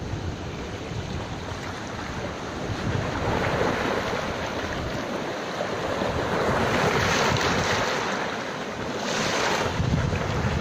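Surf washing on a sandy shore in steady noise that swells louder a few times, with wind buffeting the microphone in a gusty low rumble.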